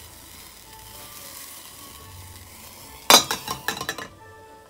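Mulled red wine burning and simmering in a saucepan with a faint steady hiss. About three seconds in comes a loud run of sharp metal clinks and clatter at the pan, lasting about a second.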